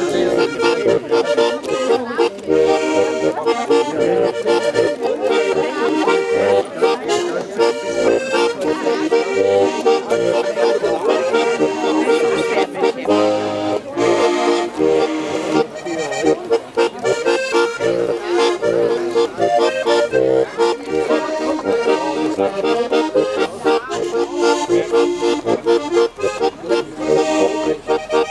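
Diatonic button accordion, a Steirische Harmonika, playing a tune with continuous melody and chords.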